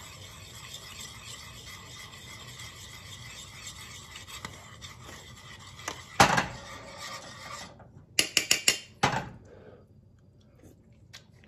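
A hand mill grinding salt over a saucepan of gravy, a steady rasp for about seven and a half seconds with a knock partway through, then a quick run of sharp clicks and knocks as it stops.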